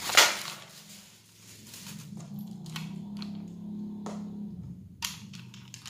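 A paper-wrapped perfume bottle cap being unwrapped and handled: a sharp paper crinkle just after the start, then a few light clicks, one louder about five seconds in.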